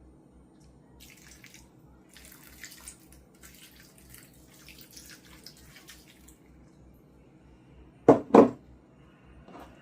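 Faint wet, crackling sounds, then two loud knocks in quick succession about eight seconds in.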